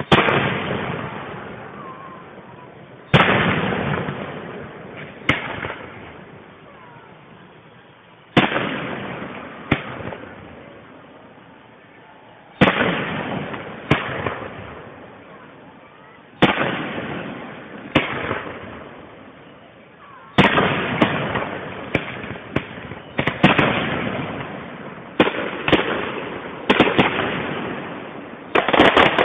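Aerial fireworks shells bursting with sharp bangs, each followed by a rumbling echo that dies away over a couple of seconds. The bangs come every two to four seconds at first, then follow each other quickly and overlap for the last third.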